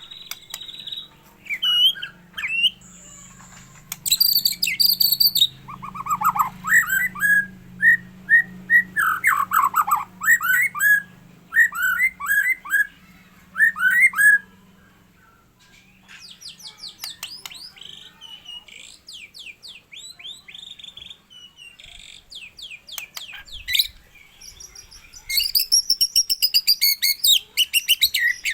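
A songbird singing a long, varied song of loud whistled phrases, with quick falling notes, rapid trills and high thin notes, broken by short pauses. A fast run of repeated notes comes near the end.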